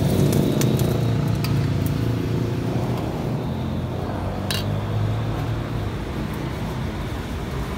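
Metal spatula clinking and scraping against a steel wok while stirring a broth: several light clinks in the first two seconds and one sharper clink about four and a half seconds in. A steady low rumble runs underneath.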